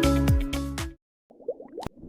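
Background electronic dance music with a steady beat that stops abruptly about a second in, followed by near silence, with faint small sounds and a sharp click near the end.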